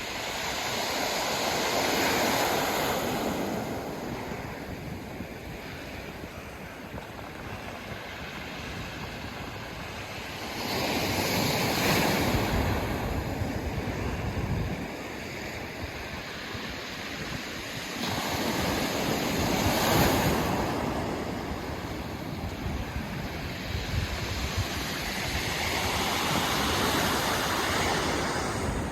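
Sea waves breaking and washing up a pebble beach, a swell of surf about every 8 to 10 seconds over a constant wash, with some wind on the microphone.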